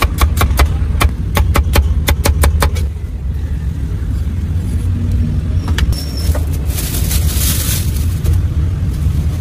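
A cleaver chopping cucumber on a wooden chopping block in quick strokes, about five a second, stopping about three seconds in. A plastic bag rustles near the end, over a steady low rumble of traffic.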